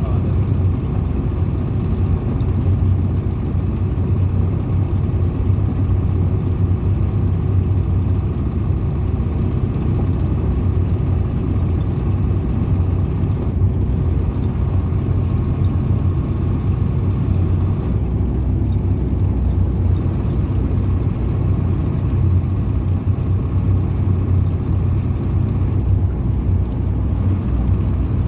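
Ford Cargo 712 light truck's diesel engine running at an even cruise on the highway, with road noise: a steady, deep drone that holds without a break.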